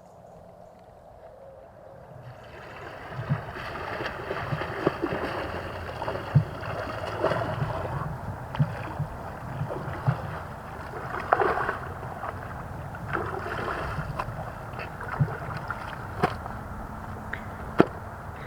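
Water splashing and sloshing with scattered irregular knocks, swelling up about two seconds in.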